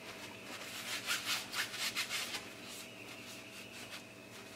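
Shop rag rubbing and wiping grease and grime off the steel spindle of a 14-bolt axle housing, a quick run of back-and-forth strokes about a second in that then goes fainter.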